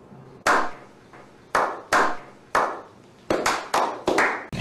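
A slow clap by a small group of men: single loud hand claps, each ringing out briefly, about a second apart at first and speeding up near the end.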